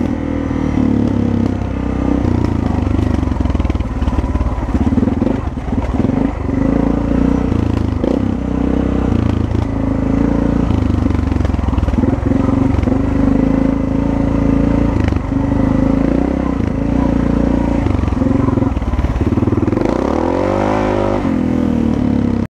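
Dirt bike engine running while riding a bush track, heard from the rider's helmet. The engine note rises and falls with the throttle, revs up near the end, then cuts off suddenly.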